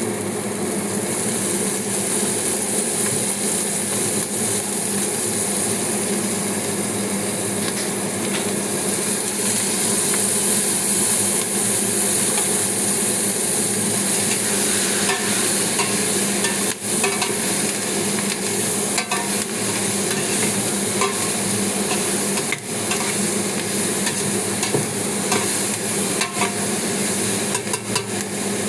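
Food frying in a pan: a steady sizzle, with a few light clicks and knocks in the second half.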